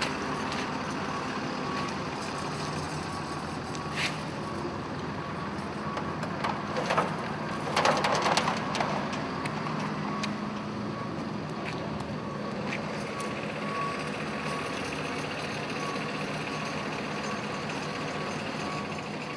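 A vehicle engine running steadily under a repeating high-pitched beep, typical of a reversing alarm. A brief burst of clattering comes about eight seconds in and is the loudest moment.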